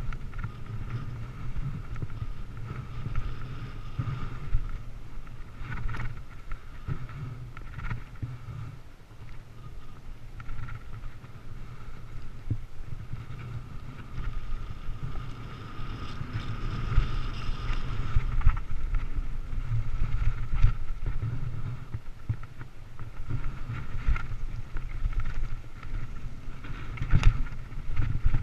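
Mountain bike rolling over rough trail: wind rushing over the microphone as a low rumble, a steady whir, and scattered knocks and rattles from bumps, the sharpest near the end.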